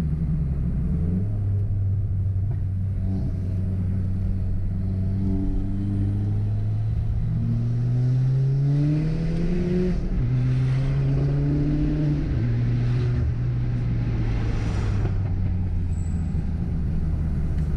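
Ford Fiesta ST engine under way: it runs steadily, then climbs in pitch for about four seconds, drops sharply, climbs briefly again and drops once more, as at two upshifts, before settling into a steady cruise.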